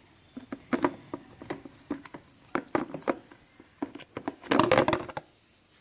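Irregular clicks and knocks of the motorcycle's plastic air filter housing parts being handled as its cap and intake pipe are pulled off, with a louder rattling run about four and a half seconds in. Crickets chirp steadily in the background.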